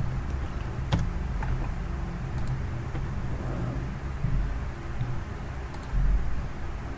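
Steady low background hum with a sharp computer mouse click about a second in and a few fainter clicks later.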